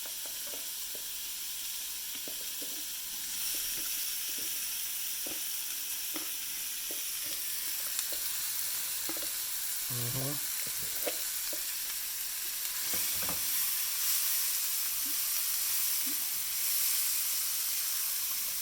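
Onions and peppers sizzling in hot oil with spices in a frying pan, stirred with a spatula. The sizzle grows louder about three seconds in and again late on, with scattered knocks and scrapes of the spatula against the pan.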